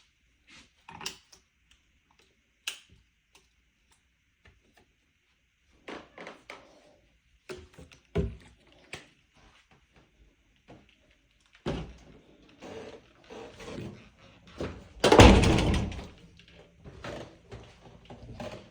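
Scattered knocks, clicks and handling noises, loudest a rough, noisy burst lasting about a second around fifteen seconds in.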